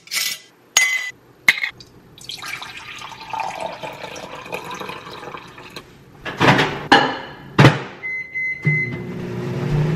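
Milk poured from a glass jar into a ceramic mug, a steady liquid pour whose pitch rises as the mug fills. A few clinks come before it, and loud knocks of glass set down on the countertop after. A short high tone sounds near the end, followed by a low hum.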